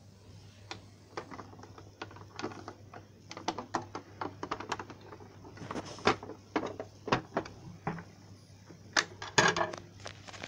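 Irregular plastic clicks, taps and knocks from handling a Pyronix Deltabell Plus alarm bell box as its cover is taken off. The knocks grow louder and denser in a cluster near the end.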